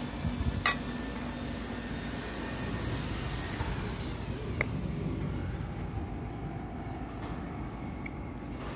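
Steady low outdoor background rumble, with a sharp click a little under a second in and a fainter click about halfway through.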